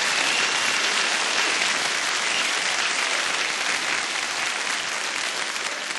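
Live audience applauding, a steady clapping that slowly dies down toward the end.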